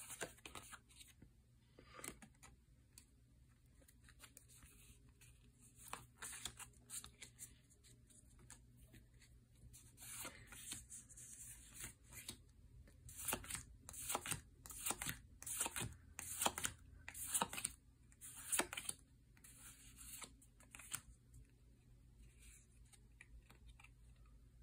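Faint papery swishes and flicks of Pokémon trading cards being slid off a stack one at a time. They are sparse at first and come thick and fast through the middle.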